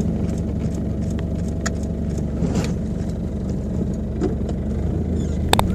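Car engine running steadily, with a sharp click near the end.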